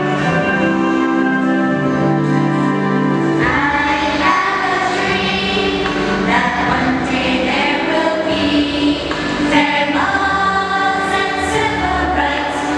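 Music with a choir singing held notes in a gospel style.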